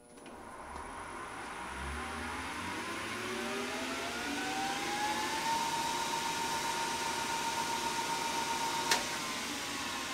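1990 Supermax lathe, its two-speed three-phase motor run from a VFD on high speed, spinning up with a rising whine that climbs for about five seconds and then holds steady. A sharp click comes about nine seconds in, after which the pitch begins to sink.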